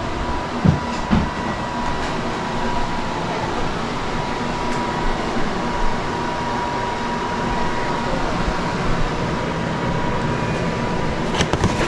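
Steady fan-like hum of a room appliance or ventilation running, with a faint steady high whine, and a few light clicks and knocks near the end.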